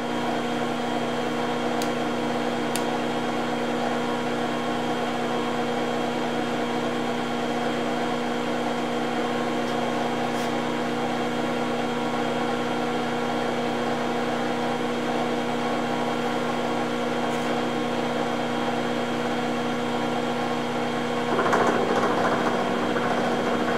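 Bridgeport milling machine running off a rotary phase converter, its spindle turning in back gear at about 80 RPM: a steady electric motor hum with several held tones. Near the end a louder, rougher whir joins for a second or two.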